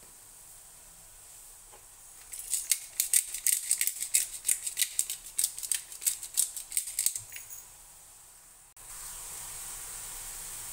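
Hand pepper mill grinding pepper over raw turkey tenderloin: a quick run of clicks lasting about five seconds.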